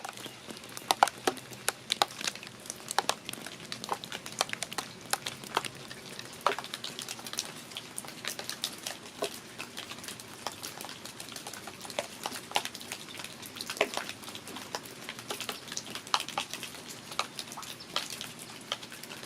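Rain, with separate drops ticking sharply and irregularly on hard surfaces, several a second, over a soft steady hiss.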